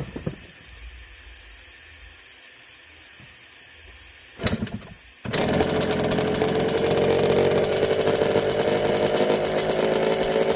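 Yamaha Blaster ATV's single-cylinder two-stroke engine starting about five seconds in, after a brief burst, then idling steadily as it warms up in the cold.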